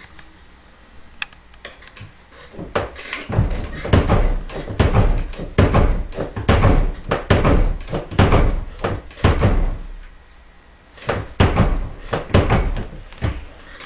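Reloading press being short-stroked up and down to stretch a .45-70 brass case in a case-stretcher die: a run of metallic clunks about two a second. There is a short pause near the end, then a few more strokes.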